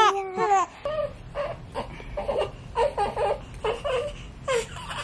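Newborn baby crying: a loud wail that ends about half a second in, then short, softer whimpering cries about twice a second.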